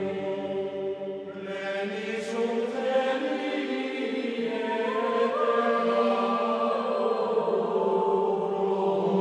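Slow choral chant with long held notes that move to a new pitch every second or two.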